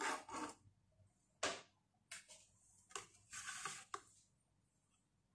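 Kitchen knife knocking on a wooden cutting board half a dozen times at an uneven pace while a green chili is cut, with a short scraping sweep across the board a little after three seconds in.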